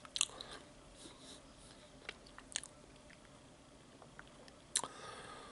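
Faint chewing of a mouthful of chicken club sandwich, broken by a few sharp wet mouth clicks and lip smacks. The loudest come just after the start and about a second before the end.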